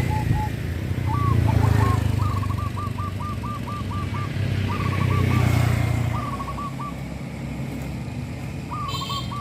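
A vehicle engine running on the road, growing louder around a second and a half in and again around five seconds, then easing. A bird repeats a short phrase of rapid, evenly spaced chirping notes several times over it.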